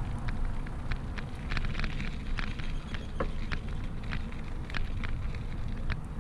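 Bicycle ride heard through a camera on the bike: a steady low rumble of wind and tyres on pavement, with irregular light clicks and rattles from the bike, a few each second.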